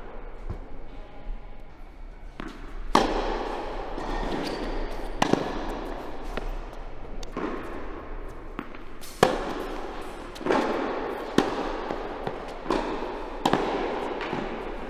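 Tennis balls struck by rackets and bouncing on an indoor hard court: sharp pops every one to two seconds, each echoing through the large hall.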